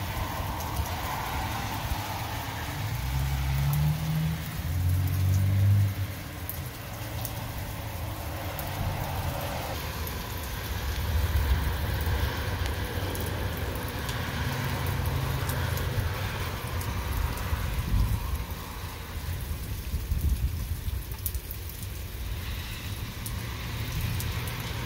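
Steady rain pattering and dripping on wet ground after a hail storm, with a low rumble underneath that swells twice.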